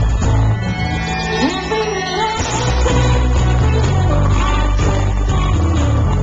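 Live electropop song over a festival PA, with synth bass, beat and a woman singing into a microphone, heard through a pocket camcorder's microphone in the crowd. The bass drops out about half a second in and comes back in about two and a half seconds in.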